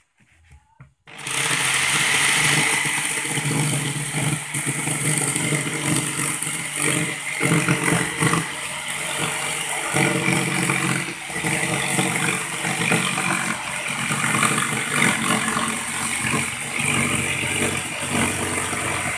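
Corded electric jigsaw starts about a second in and saws steadily through an MDF board, the blade's rapid rasping rising and falling a little as the cut goes on.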